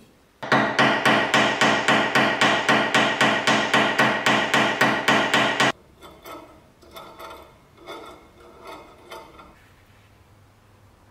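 A hammer striking metal in a steady rhythm, about four ringing blows a second for some five seconds, then stopping abruptly. After that come fainter clicks and scrapes as the iron's metal handle is moved by hand.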